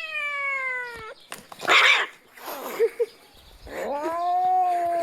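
Angry cat yowling: a long drawn-out wail falling in pitch, then a short loud hiss, then another yowl that rises and holds steady near the end.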